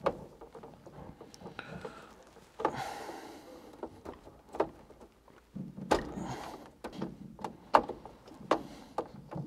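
Insulated cables being bent and dressed by hand inside a metal distribution board: a string of sharp clicks and knocks with short bursts of rustling as the stiff cores are pushed into place.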